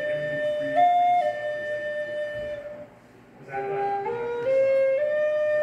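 Native American-style wooden flute music: a short phrase that climbs in steps to a held note with a brief higher turn, stops about three seconds in, then is played again.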